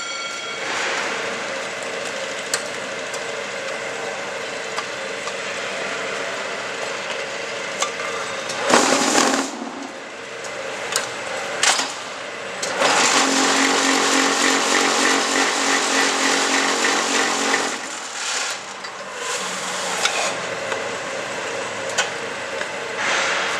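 QTJ4-26A concrete block-making machine running with a steady mechanical hum, short loud surges and sharp clanks. About halfway through, a louder, even stretch with a deep hum lasts about five seconds, then eases off.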